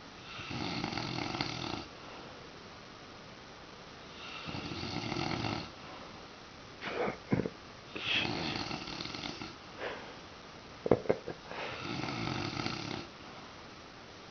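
A man snoring loudly: four long snores, one every three and a half seconds or so, with a few short sharp sounds in the gaps between the later ones.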